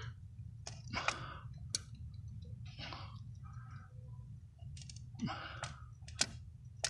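Scattered clicks and short scrapes of pliers and plastic parts as a PCV valve hose fitting is worked loose by hand, over a faint steady low hum.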